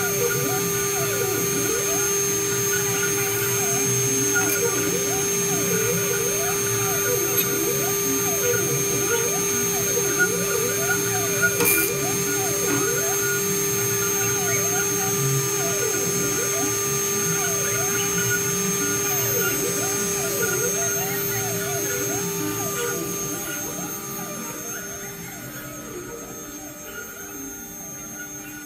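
CNC milling machine carving crystal: the spindle gives a steady high whine while the axis motors whir up and down in pitch every second or so as the cutter moves. The sound grows quieter over the last few seconds.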